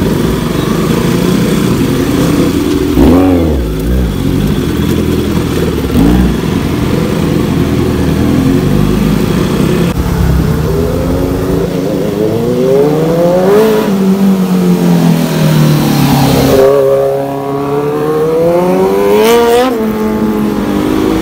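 Motorcycle engine running hard while riding, revving up and easing off again and again. Its pitch climbs and drops several times, with the biggest sweeps in the second half.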